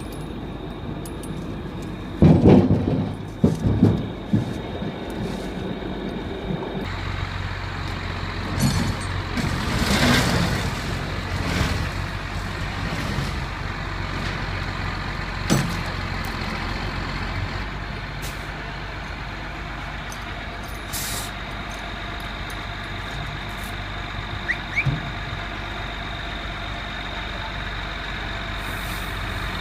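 A few loud thumps and knocks, then a truck engine running with a steady low hum from about seven seconds in, with occasional knocks over it.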